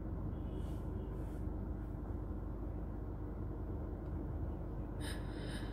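Steady low hum inside a Kia Seltos cabin, with a faint click or two near the end.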